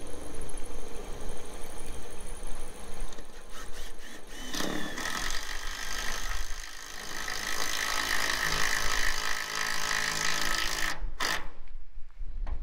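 Cordless drill driving a screw into a corrugated steel roof panel: the motor whines steadily for about six seconds from partway in, then cuts off abruptly. Wind rumbles on the microphone underneath.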